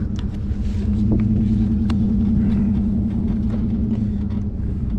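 An engine running steadily: a loud, low hum that holds one pitch and starts suddenly.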